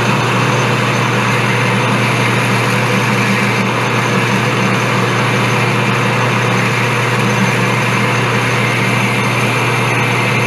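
Metal lathe running steadily while a boring bar is hand-fed into the bore for a light cleanup cut, a constant machine hum and hiss.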